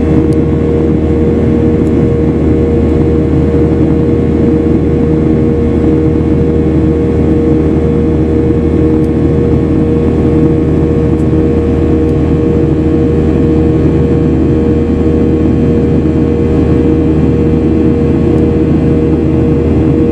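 Boeing 737 jet engines and airflow heard from inside the passenger cabin during the climb after takeoff: a loud, steady drone with a constant low hum and a few held tones.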